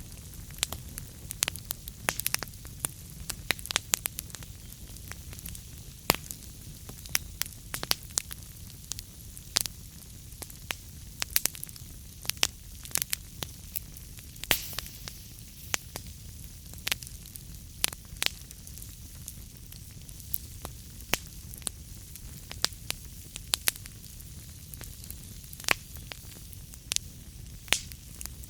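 Wood fire burning in a fireplace: steady low rumble and hiss with sharp, irregular crackles and pops several times a second.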